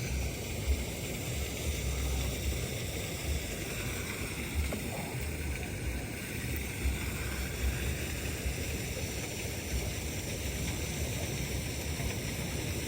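Steady wash of sea water on a beach, with gusty wind rumbling on the microphone.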